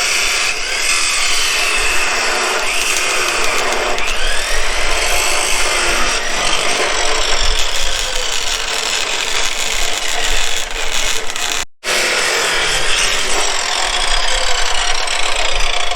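Power tool cutting steel tubing, its whine rising and falling in pitch as it bites, with a sudden break about twelve seconds in.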